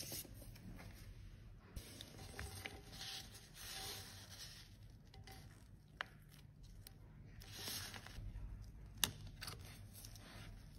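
Faint paper rustling and rubbing as a sheet of paper is lifted off a freshly pressed powder highlighter in its metal pan, with a few light clicks of handling near the end.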